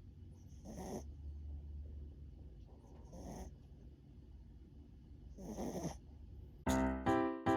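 Pomeranian-Chihuahua mix dog snoring in its sleep, three snores about two and a half seconds apart. Piano music starts near the end.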